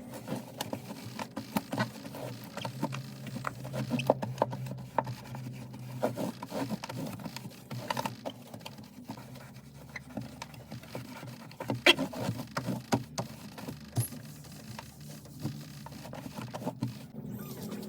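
Irregular light taps, clicks and scrapes of small items and packaging being handled and set down, with a sharper knock about twelve seconds in.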